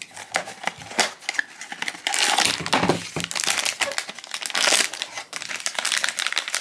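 A small cardboard blind box being opened, with short clicks and rustles. From about two seconds in there is dense crinkling as the foil bag inside is pulled out and handled.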